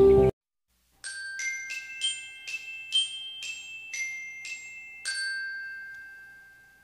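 Background music cuts off just after the start. After a short gap comes a bell-like outro jingle: a quick run of about ten struck, chiming notes, the last of which rings out and slowly fades.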